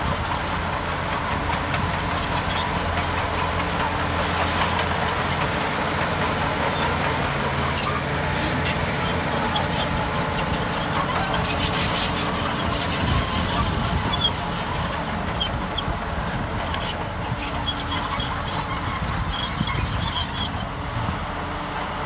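Crawler bulldozer's diesel engine running steadily, with the steel tracks giving off short high squeaks and rattles as it works. The engine note shifts about two-thirds of the way through.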